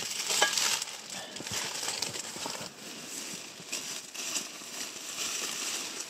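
Rustling and crinkling of a lightweight sleeping quilt's fabric being handled, lifted and shaken out.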